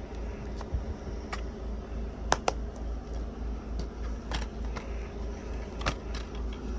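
Plastic DVD cases being handled: a scattering of sharp clicks and taps, the loudest a quick pair about two and a half seconds in as a case is snapped shut.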